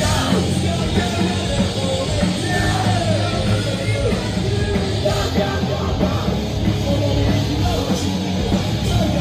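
Live rock band playing loud with electric guitars, drums and a vocalist, a full, dense sound with no break, as heard from the audience floor.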